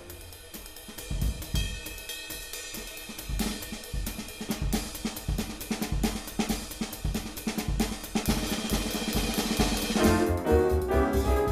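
Music: a drum-kit break of quick hi-hat, snare and bass-drum strokes with the rest of the band dropped out. The full jazz band comes back in about ten seconds in.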